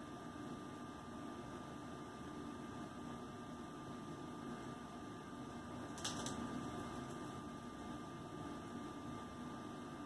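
Steady electrical hum and room noise with a faint constant high tone. About six seconds in, a single brief rustle.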